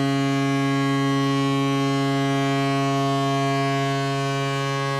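Tampa Bay Lightning 2004 playoffs goal horn: one long, steady, low-pitched horn blast held at an even pitch.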